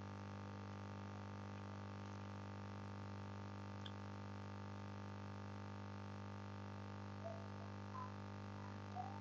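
Steady electrical mains hum with a buzz of many overtones. A few brief, faint high-pitched sounds come near the end.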